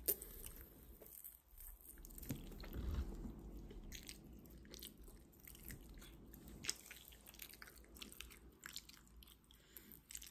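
A person chewing a mouthful of food with the mouth closed: soft, wet chewing with scattered small clicks and crunches, and one sharp click right at the start.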